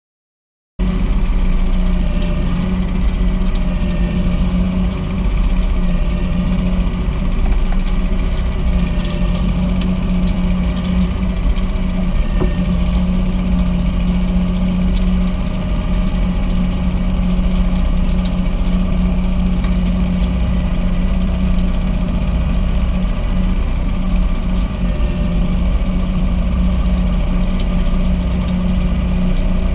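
Tractor engine and Sittler compost windrow turner running steadily as the turner works through a compost windrow. The sound cuts in suddenly about a second in.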